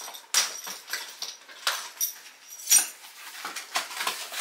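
A key scraping and slicing through packing tape to open a cardboard box. It comes as a string of short, sharp, scratchy strokes, the strongest nearly three seconds in.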